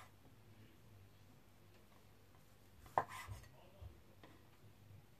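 Chef's knife slicing char siu and knocking on a wooden cutting board: one sharp knock about three seconds in, then a few fainter taps.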